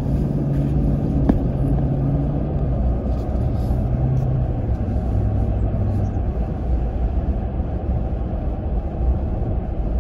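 Car interior noise while driving on a paved road: a steady low rumble of engine and tyres, with an engine hum that shifts pitch a few times and settles lower around the middle. There is one short click about a second and a half in.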